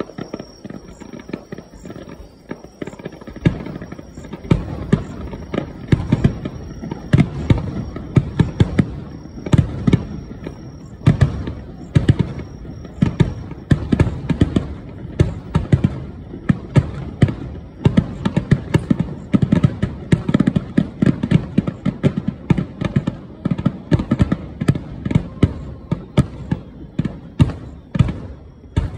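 Aerial fireworks shells bursting in a rapid barrage: a dense run of sharp bangs and booms, several a second, over a continuous low rumble, growing busier and louder a few seconds in.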